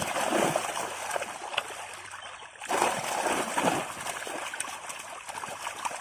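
Water splashing and sloshing in irregular surges, with a brief break about two and a half seconds in.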